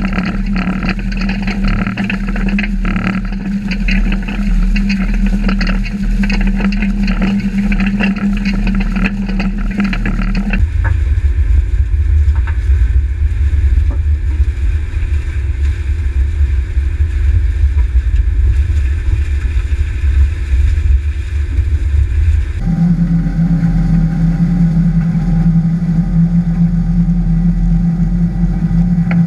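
Cyclone no-till manure injector working through corn stalk residue: a steady mechanical hum with a fast crackle of stalks and soil thrown by the coulter blade. For about twelve seconds in the middle, the hum drops out and a heavy low rumble takes over. Then the hum returns.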